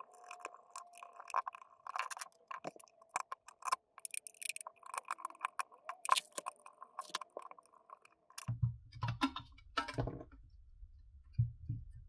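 Small clicks and ticks of a micro Torx screwdriver and plastic parts being handled while the screws of a smart speaker's plastic shell are undone. About eight seconds in, this gives way to dull thumps and low rubbing as the shell and speaker assembly are handled and pulled apart.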